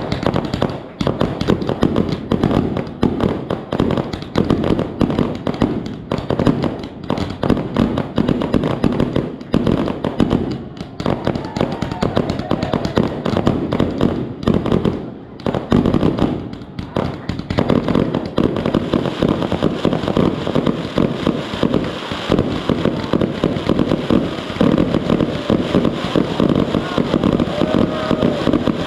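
Fireworks show: dense, rapid crackling and popping of many shells bursting, near-continuous, with a brief lull about fifteen seconds in.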